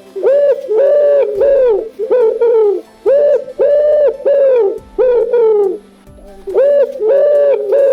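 An animal calling over and over in short calls that rise and fall, coming in quick runs of two to four, with a brief pause about six seconds in.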